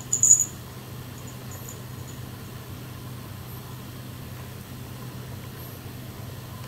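Steady low background hum with a faint hiss, after a brief loud rustle in the first half second.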